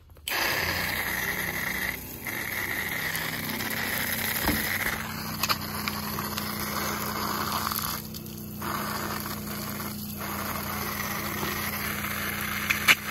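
Strong jet of water spraying from an open brass ball valve on PEX line onto grass, pushed by a Seaflo 33-series diaphragm water pressure pump that hums steadily underneath. The spray starts just after the beginning and dips briefly three times.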